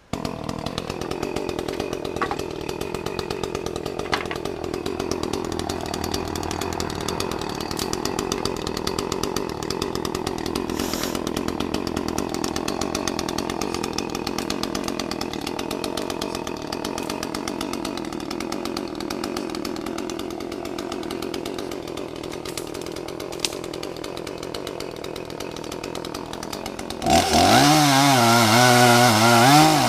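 Chainsaw running steadily, then opened up much louder near the end, its pitch wavering as it works.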